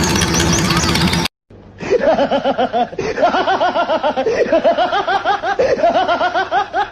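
A loud engine-like noise that cuts off abruptly about a second in, then a long run of rapid, high, cartoonish laughter, quick 'ha-ha' pulses about five or six a second.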